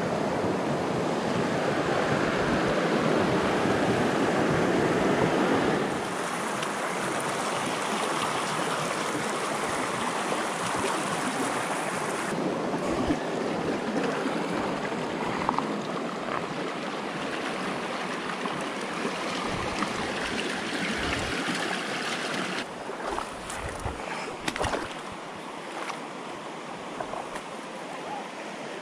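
Shallow river water rushing steadily over rock ledges and riffles, louder for the first six seconds and a little softer later on, with a few soft knocks near the end.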